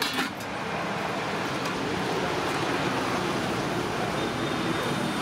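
Steady city street traffic noise, a continuous rumble and hiss of vehicles, with a brief click right at the start.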